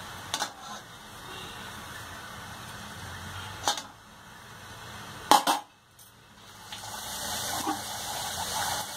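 A metal slotted spoon clinks sharply against the kadhai a few times, loudest just past halfway. A rolled poori then goes into the hot oil, and a frothy sizzle builds up through the last few seconds.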